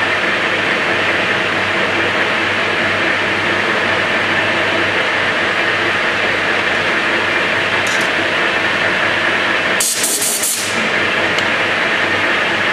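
Metal lathe running steadily while a center drill in the tailstock is fed into the spinning workpiece. About ten seconds in there is a brief loud hiss, with a fainter short one shortly before it.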